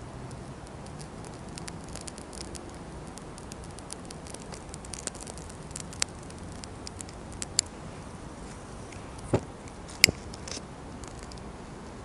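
Burning birch-bark tinder crackling, with many small scattered pops and two sharper snaps late on.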